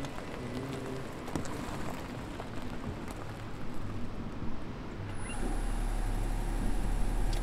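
Faint outdoor background noise, then about five seconds in a steady low engine hum with a thin high whine sets in suddenly and keeps running: a car engine running.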